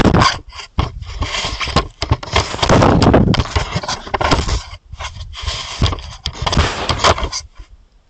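Roosevelt elk rubbing its fur against a trail camera: loud scraping and rustling right on the camera's microphone, in irregular bursts that stop about seven and a half seconds in.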